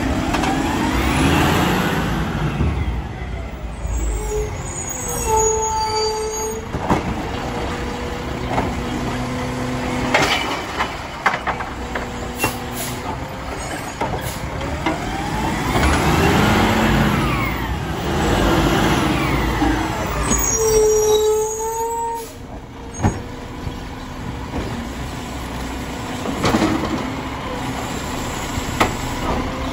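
Mack LR side-loader garbage truck with a Labrie Automizer arm running through pickup cycles. The engine revs up and back down twice as the hydraulic arm is worked, each time followed by a short brake squeal as the truck stops, with scattered knocks.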